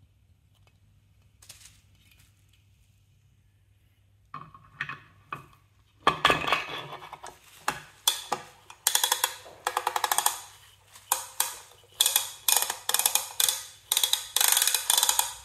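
Plastic and metal parts of an Alvey 650A side-cast reel being handled during reassembly. It is quiet at first, then from about four seconds in comes a long run of sharp, ringing clicks and knocks.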